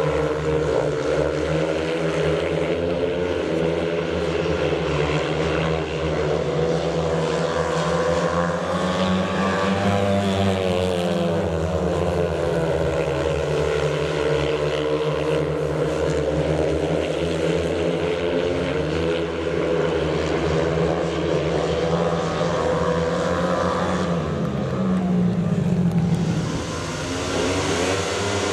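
Speedway motorcycles' single-cylinder methanol engines racing, a loud continuous engine note whose pitch rises and falls in long sweeps.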